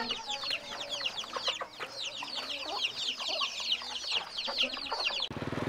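A cage of young chicks peeping nonstop, many quick high chirps overlapping. It cuts off abruptly near the end and a steady low hum takes over.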